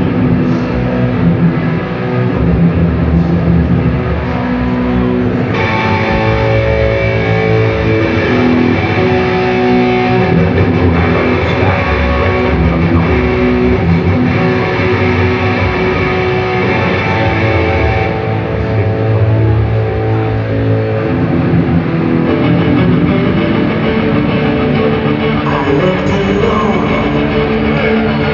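Heavy metal band playing loud through a PA at a sound check: distorted electric guitars and bass guitar playing riffs.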